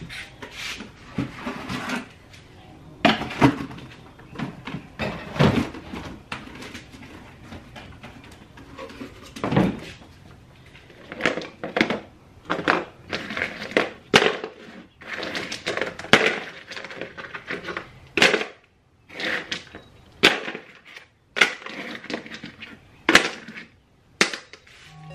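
Garage clutter being handled and set down: an irregular string of separate knocks, thunks and clatters, about one a second, as a plastic planter, rocks and hand saws are moved about on a shelf and a plastic cooler lid.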